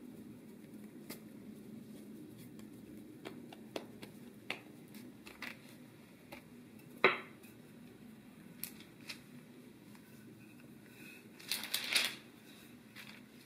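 Soft handling sounds of dough being kneaded and pressed by hand on parchment paper, with scattered light taps and one sharper knock about halfway through. Near the end a wooden rolling pin rolls over the dough with a short burst of rustling and rubbing, over a low steady hum.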